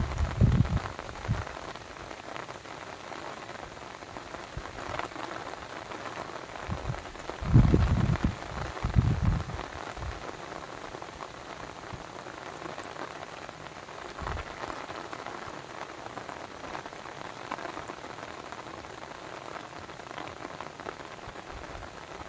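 Steady splashing water noise with no pitched sounds in it. Deep low rumbles cut in at the very start, twice about a third of the way in, and briefly once more past the middle.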